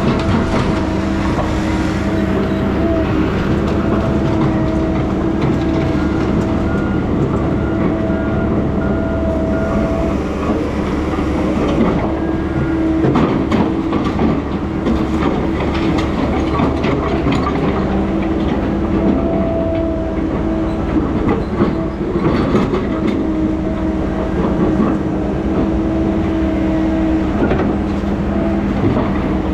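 Heavy diesel logging machinery running steadily: an engine hum with a whine that drops out and returns, over rattling and clanking.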